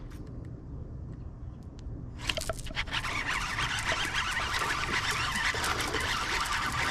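From about two seconds in, a steady rush of noise full of small clicks sets in and slowly grows louder: a baitcasting reel being cranked and water splashing as a bass hits the popping frog and is fought in.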